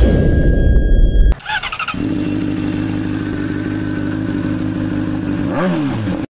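Intro sound effect: a heavy low rumble, then a motorcycle engine running steadily for a few seconds, its pitch falling near the end before the sound cuts off.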